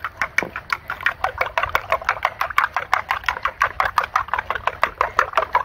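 Eggs being beaten by hand in a bowl: a fast, even run of clicking strokes, about five or six a second.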